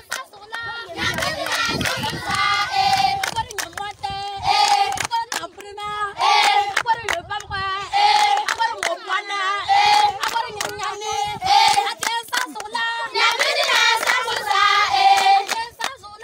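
A group of children singing together in repeated phrases while clapping their hands.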